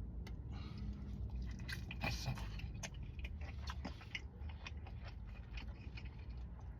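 Close chewing and biting of tender smoked barbecue meat, with scattered small wet clicks and smacks of the mouth.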